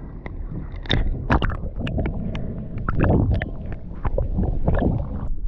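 Underwater noise picked up by an action camera in its housing: a muffled low rumble with scattered clicks and knocks, which stops abruptly about five seconds in.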